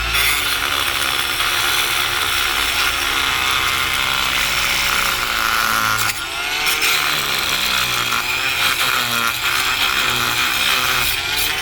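Oscillating multi-tool running steadily with a blade, scraping hardened concrete off a putty knife. Its pitch wavers as the blade bites, and there is a short break about six seconds in.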